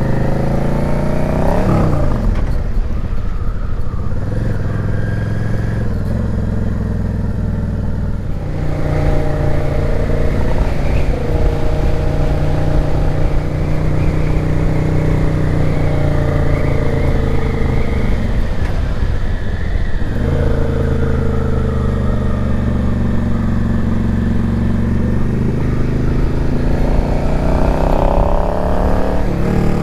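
Yamaha XVS650 V-Star's V-twin engine running on a ride, the revs climbing and falling with gear changes: a rise and drop at the start, a steady stretch, a dip in the middle and another climb near the end.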